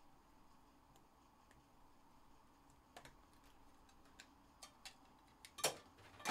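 Faint, scattered clicks and taps of trading cards and clear plastic card holders being handled, with two louder clacks near the end.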